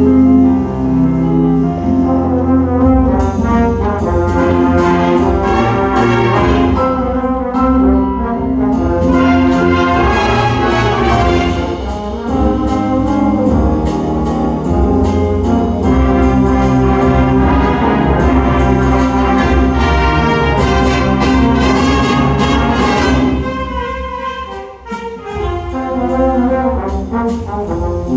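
High school wind ensemble playing, with brass (trombones and trumpets) to the fore in sustained chords. The sound thins briefly near the end before the full band comes back in.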